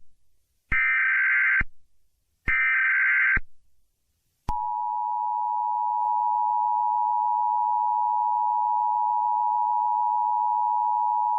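Emergency Alert System tones: two short buzzy data bursts of just under a second each, with a pause between them, then a steady two-tone attention signal that starts about four and a half seconds in and holds without change.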